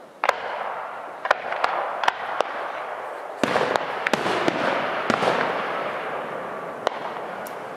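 Aerial fireworks shells bursting overhead: a string of about ten sharp bangs spread over several seconds, each trailing off in echo, with a denser run of bursts from about halfway through.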